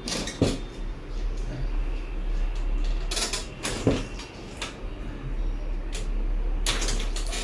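Two sharp knocks about three and a half seconds apart, the thrusts of a chiropractic adjustment on a patient lying on a treatment table, with two short hissing bursts between and after them.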